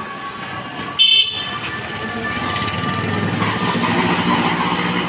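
Street traffic: a short vehicle horn toot about a second in, then traffic noise swelling louder as a vehicle draws near.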